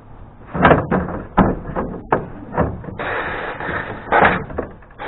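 Metal clanks and knocks from hands working the belt-tensioner spring and bracket on a stump grinder, with a scraping rasp about three seconds in.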